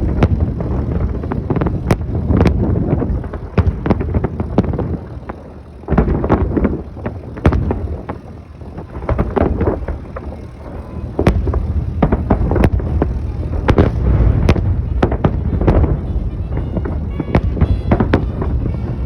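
Festive fireworks salute: an irregular series of sharp bangs and pops over a constant low rumble, with wind on the microphone.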